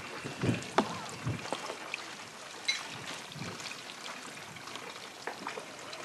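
Indistinct murmur of an outdoor crowd, with wind rumbling on the microphone and a few faint knocks in the first second or so.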